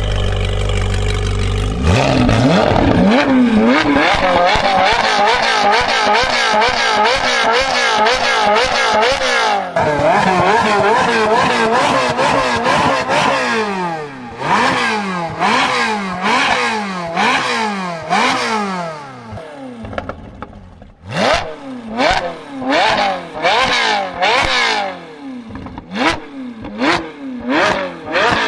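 Ferrari 458 Speciale's 4.5-litre V8, running through an Fi Exhaust valved system, revved repeatedly while stationary. It idles, then gives a long string of quick rising-and-falling revs from about two seconds in. The revs are quieter with the exhaust valves closed, and louder, sharper blips come near the end with the valves open.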